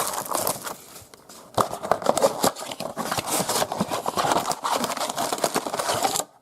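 Crinkling, tearing and scraping of plastic wrap and cardboard as a trading-card blaster box is opened and its packs handled. The dense crackling pauses briefly about a second in.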